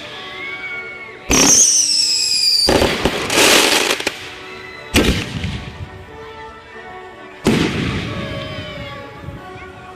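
Consumer aerial fireworks going off: a shell with a high whistle falling in pitch, a hissing, crackling burst, and two sharp bursts about five and seven and a half seconds in, each dying away. Background music plays underneath.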